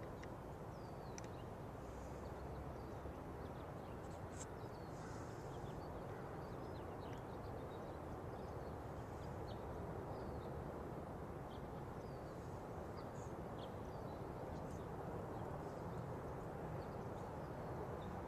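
Outdoor ambience: a steady low background noise with small birds chirping briefly and often throughout.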